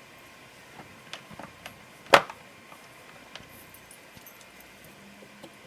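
Small plastic craft-paint bottles clicking and tapping as they are handled and set into a wooden organizer, a few light taps and one sharp, louder click about two seconds in.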